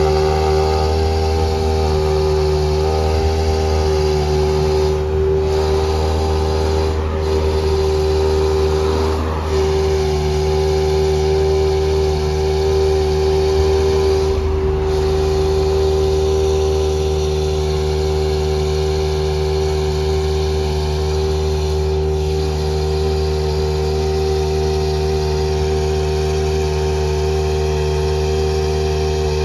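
Toyota GR Yaris Rally1 car's turbocharged 1.6-litre four-cylinder engine idling steadily at a fast, even idle.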